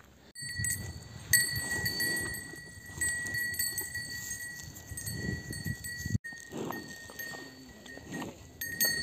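Cattle grazing at close range, with a small bell ringing steadily.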